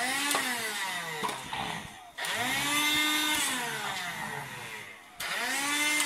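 Handheld vacuum cleaner run in three short bursts, its motor whining up in pitch and then winding down each time.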